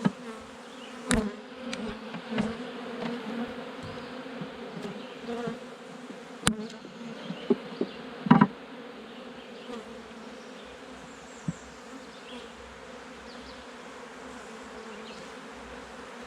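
A mass of honeybees buzzing in a steady hum around an open hive, with scattered wooden knocks and clunks as frames are set into the box, the loudest about eight seconds in.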